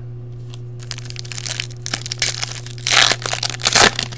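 Foil wrapper of a Topps Valor football card pack crinkling and being torn open by hand, a run of crackles with two louder bursts near the end.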